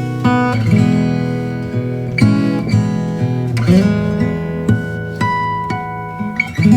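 Background music: an acoustic guitar playing, its plucked and strummed notes ringing on.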